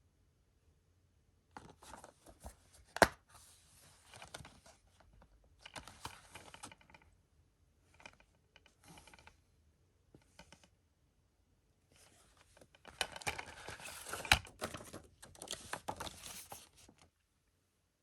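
Blu-ray box set being unwrapped and handled: bursts of crinkling, tearing plastic wrap, with a sharp click about three seconds in and another about fourteen seconds in. There are two main bouts of handling, the second longer and louder.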